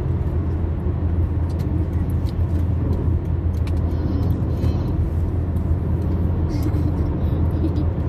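Steady road and engine noise of a car travelling at motorway speed, heard inside the cabin: a constant low drone of tyres and engine.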